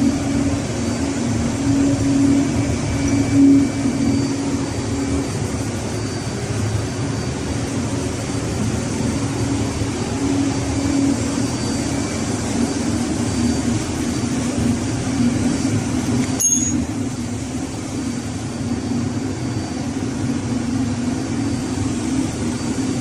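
Steady, loud drone of running ship's machinery, with a strong low hum that holds level throughout. A single sharp metallic click sounds about two-thirds of the way through.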